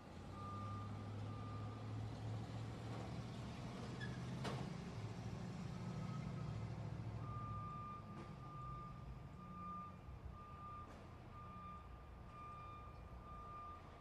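Truck pulling away with its engine running and its electronic warning beeper sounding in short regular beeps. The beeps come several times at the start, pause, then repeat about twice a second from halfway on. The engine is loudest in the first half and eases off about halfway through, and there is one sharp click about four seconds in.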